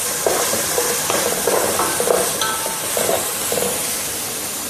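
Onion-tomato masala with spice powders sizzling in hot oil in an aluminium pot while a spoon stirs and scrapes it about twice a second, the sauté that cooks off the raw smell of the spices. The stirring stops near the end while the sizzling goes on.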